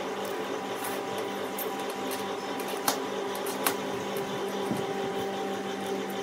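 Two sharp metal clinks, about three-quarters of a second apart, as steel ball bearings and washers are handled and slid onto a bolt, over a steady mechanical hum.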